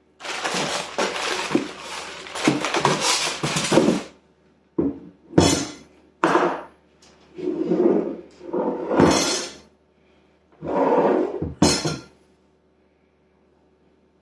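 Packaging and parts of an engine rebuild kit being handled: about four seconds of continuous rustling, then a series of short rustling and clattering bursts with some light clinks.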